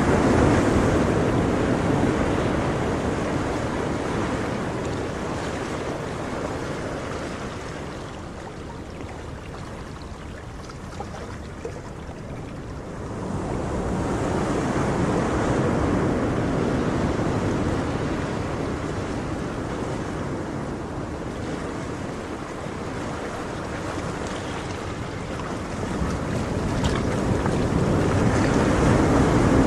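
Ocean surf: a steady rush of waves that swells and ebbs in slow surges, loudest at the start, again about halfway through, and near the end.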